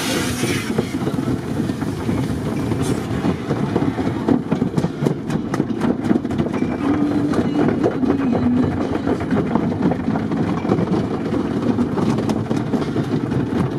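Automatic car wash brushes scrubbing and slapping against the windshield and side windows, heard from inside the car. A hiss of spray fades within the first second, and from about three seconds in the brush strips slap the glass many times in quick succession.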